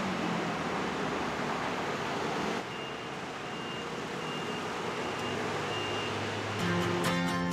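Street traffic noise, which drops a little quieter partway through. A short, high electronic beep then repeats at an even pace, about six times. Background music with guitar comes in near the end.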